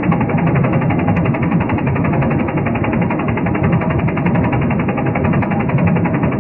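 A rotating machine running steadily, with a fast, even mechanical rattle.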